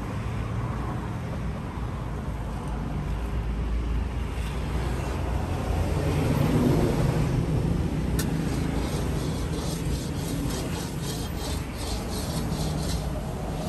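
Steady low rumble of street-stall surroundings. From about two-thirds of the way in comes a run of quick, even knocks, about three to four a second, typical of a knife or utensil working at a cooking stall.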